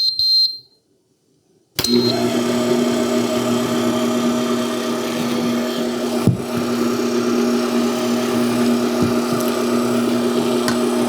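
A few short electronic beeps, then after a brief pause the Vevor 600-watt stand mixer's motor starts and runs steadily on its lowest speed, the dough hook turning bread dough ingredients in the bowl.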